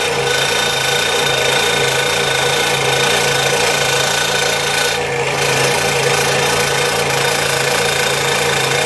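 Scroll saw running, its blade slowly resawing a thick poplar spoon blank stood on end: a steady cutting noise over the motor's hum, easing briefly about five seconds in.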